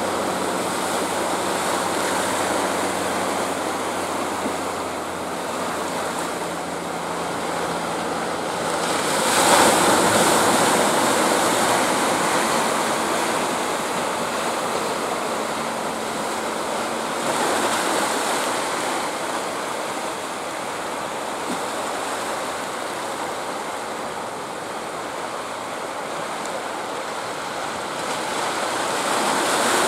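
Surf breaking and washing steadily, with the low hum of a fishing boat's engine underneath for the first several seconds before it fades under the water noise. The surf swells louder about ten seconds in, again around eighteen seconds, and near the end.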